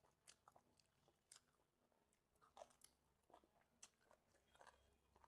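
Faint, close-up eating sounds: a person chewing, with irregular soft wet smacks and clicks of the mouth.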